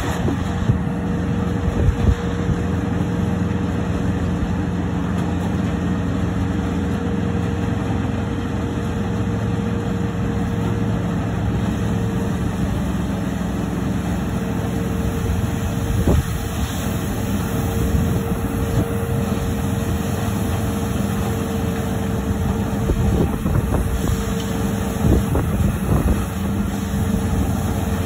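Small red combine harvester running steadily as it cuts standing wheat: its engine and threshing machinery hum, with a steady whine held over them.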